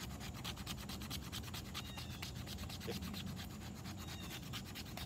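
Knife scraping and shaving a thin stick of wood in quick, repeated strokes, curling off fine shavings for fire tinder.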